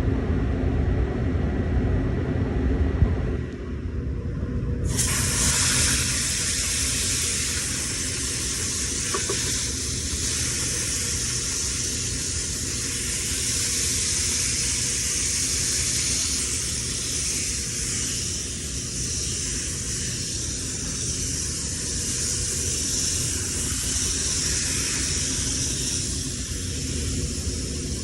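Water spraying onto a dirt-caked air-conditioner condenser coil to wash it down, starting about five seconds in as a steady hiss, over a low steady rumble.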